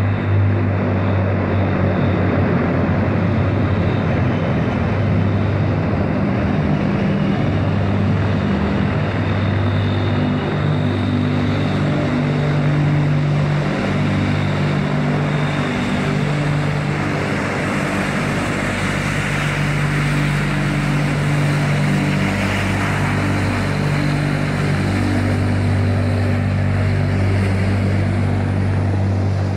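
Antonov An-22's four turboprop engines, Kuznetsov NK-12s with contra-rotating propellers, running as the aircraft taxis close by. The sound is a loud, steady propeller drone over rushing engine noise, and its deep low hum swells and fades every few seconds.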